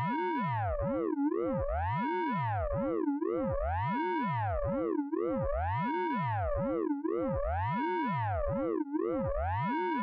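Synthesized radar pulse-train effect from the Orange Vocoder plug-in: a steady, many-toned electronic sound whose pitch sweeps up and down in repeating arcs, a large swell about once every two seconds with smaller ripples in between.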